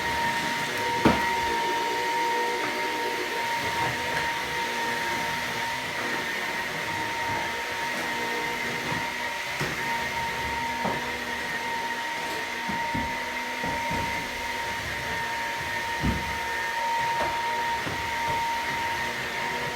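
Vacuum cleaner running steadily on a floor, its motor giving a constant whine, with a few short knocks about a second in and near the end.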